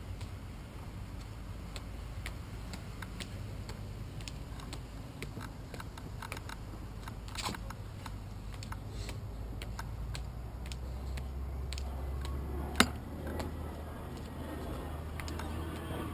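Scattered, irregular clicks and knocks from a bicycle being taken up stone steps, heard through its handlebar-mounted GoPro housing, with one sharp, loud knock about 13 seconds in.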